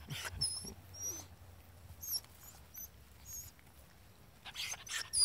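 Rottweiler puppies about a month old nuzzling and licking: soft snuffling, licking and rustling in the grass, with short, very high-pitched squeaks now and then that bunch together near the end.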